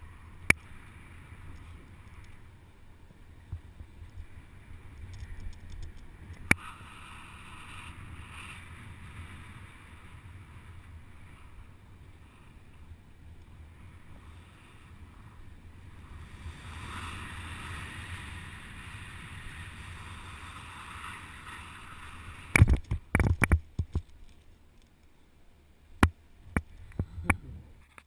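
Steady wind noise on the microphone during a BASE jump descent through cloud. About 23 seconds in comes a burst of loud sharp knocks and clatter as the jumper lands, with a few more knocks near the end.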